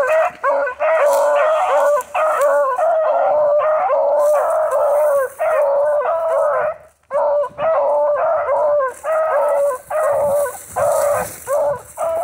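Beagle hounds baying in a quick, steady run of short calls, several a second and overlapping, the sound of hounds giving tongue on a scent trail; the calls break off briefly about seven seconds in.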